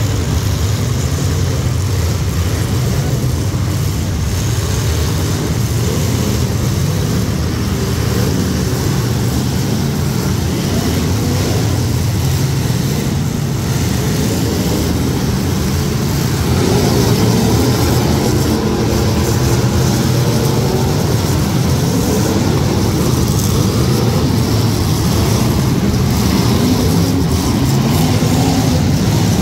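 A pack of demolition derby cars with their engines running and revving together in a dense, steady din. The sound gets louder a little past halfway as the cars move and collide.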